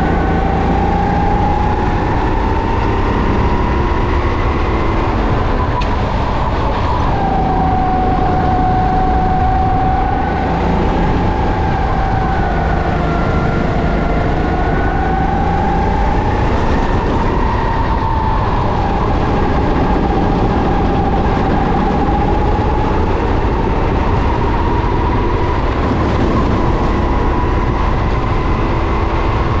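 Racing kart engine heard onboard during a race lap, its pitch climbing and falling repeatedly as the driver accelerates and lifts, over a steady low rumble.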